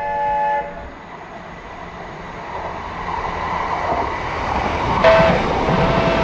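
Diesel multiple-unit passenger train approaching on the rails, its engine and wheel noise growing louder. A horn chord stops about half a second in, and the horn sounds again sharply about five seconds in.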